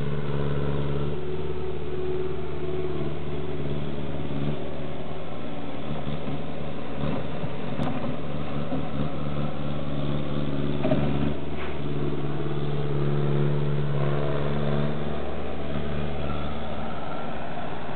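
A steady low mechanical hum, a motor or engine running evenly throughout.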